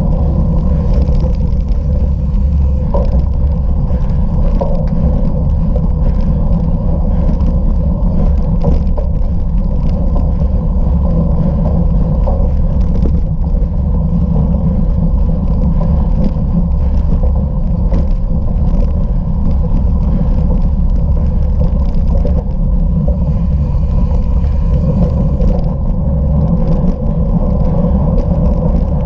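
Steady wind and rolling rumble on a camera carried by a bicycle ridden over rough ground, with frequent small knocks and rattles from the jolts.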